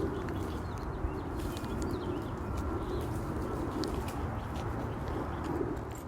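Birds calling with repeated low cooing notes over a steady background rumble; the sound drops away at the very end.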